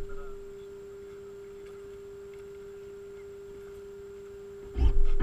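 A steady electric hum at one middle pitch, then a sudden loud rush of noise starting near the end.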